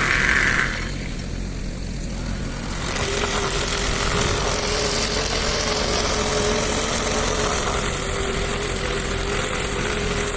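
An engine running steadily. It gets louder about three seconds in, with a steady whine on top.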